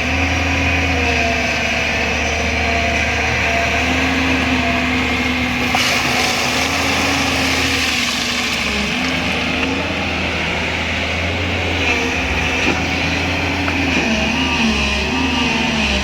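JCB 205 LC excavator's diesel engine running steadily under working load, its pitch dipping and rising as the hydraulics take load. There is a short rush of noise about six seconds in.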